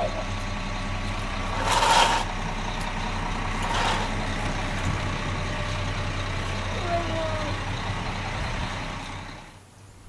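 Heavy truck engine running steadily, with two short hisses about two and four seconds in. The engine drops away near the end.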